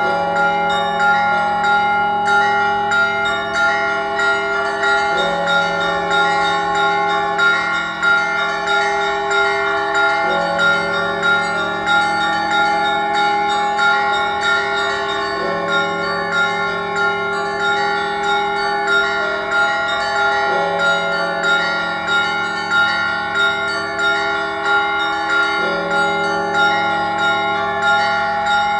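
Orthodox cathedral bells ringing a full peal. The big bell is struck about every five seconds under a quick, steady pattern of smaller, higher bells.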